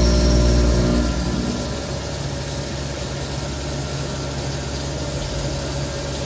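A Haas Minimill HE four-axis vertical machining center milling under flood coolant. For about the first second and a half there is a steady hum made of several tones; then it drops to a quieter, rougher machining and coolant-spray sound.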